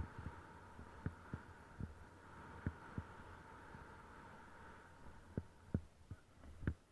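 Snowboard riding through powder heard muffled from the rider's own camera: irregular low thumps as the board runs over bumps in the snow, over a faint steady hum, with a louder thump near the end.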